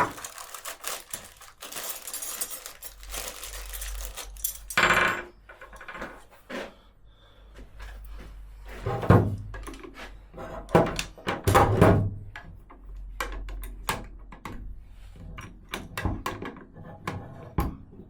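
Small metal router bits and tools clinking and knocking as they are rummaged through and handled, in a run of irregular clicks with a few louder knocks.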